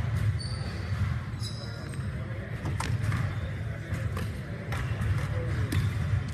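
Basketball game in a gym: a ball bouncing on the hardwood court several times at irregular intervals, with short high squeaks of sneakers on the floor over a steady low hum of the hall and crowd.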